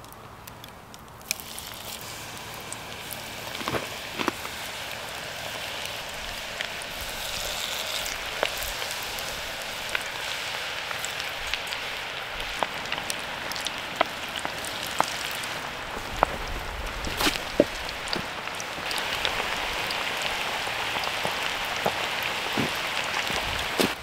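Squid rings deep-frying in a pot of oil at about 177 °C: a steady sizzle with frequent sharp pops and crackles. It starts about a second in, as the first piece goes into the oil, and gets louder in the last few seconds.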